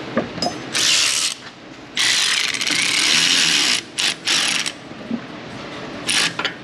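Ratchet run in several quick bursts, spinning down the bolts of a freshly mounted front brake caliper; the longest burst lasts nearly two seconds.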